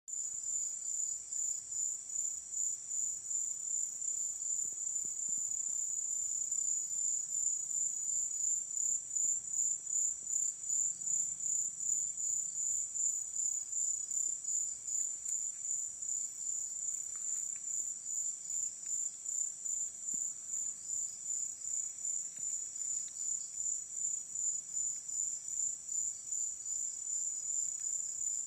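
Insects, crickets by their sound, chirping in a continuous high-pitched trill that pulses rapidly and evenly.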